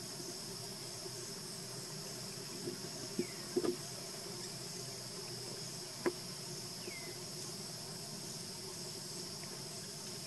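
Steady outdoor insect chorus, a continuous high-pitched chirring. A few brief clicks come near the middle, along with two short falling chirps.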